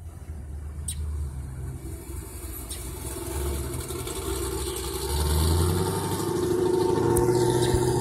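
Motor vehicle engine running with a steady hum, growing steadily louder over several seconds.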